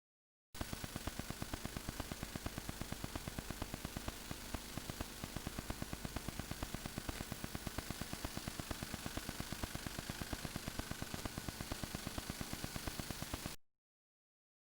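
Electronic static: an even hiss with a rapid regular ticking, about seven or eight ticks a second. It starts abruptly about half a second in and cuts off abruptly about a second before the end.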